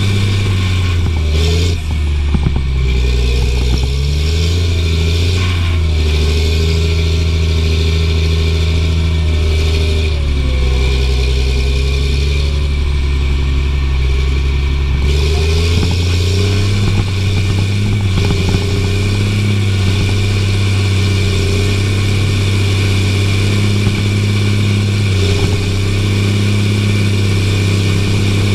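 Caterpillar tractor's diesel engine running under load while pulling a cultivator through soil, heard from inside the cab. The engine note wavers and shifts twice, early on and again around the middle, then holds steady.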